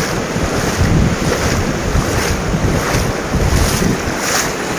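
Wind buffeting the microphone over the steady wash of sea surf, with uneven low rumbling gusts.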